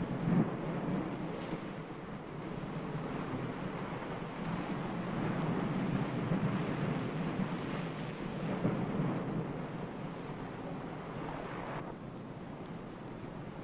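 Low rushing noise that swells and ebbs every few seconds; the higher hiss drops away abruptly near the end.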